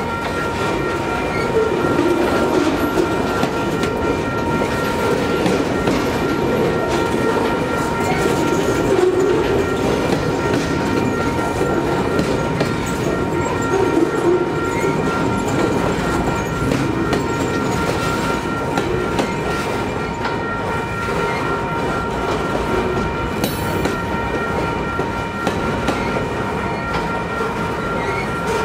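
Freight train of railcars rolling past: a steady rumble and clatter of steel wheels on the rails, with a faint steady high ring underneath.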